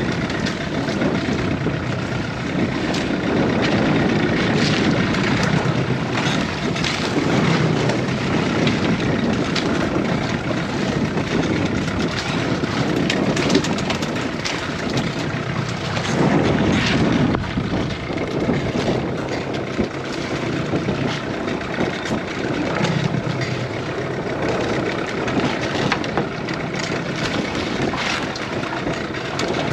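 Fishing boat's engine running steadily against the rush of water, kept going to hold the boat in a strong current.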